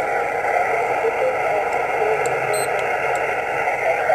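Yaesu HF transceiver's speaker putting out steady band-limited static and hiss on the 20-metre amateur band, with faint whistling tones from distant signals coming and going: the channel is open with no station transmitting.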